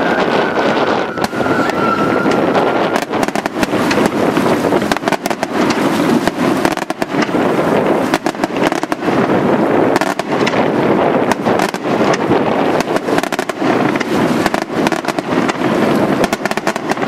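Daytime fireworks barrage: a dense, continuous volley of shell bursts and crackling reports with no let-up. A whistle, falling slightly in pitch, dies away about three seconds in.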